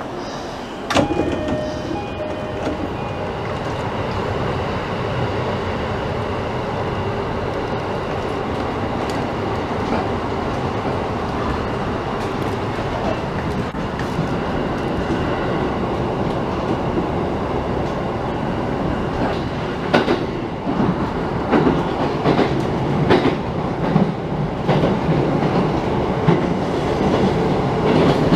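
Commuter train heard from inside the car as it pulls away from a station and runs along the line: a sharp knock about a second in, then steady running noise, with wheels clicking over rail joints more and more in the last third.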